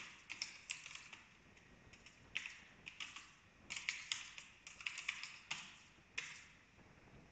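Faint computer keyboard typing: short runs of quick keystrokes with brief pauses between them, going quiet near the end.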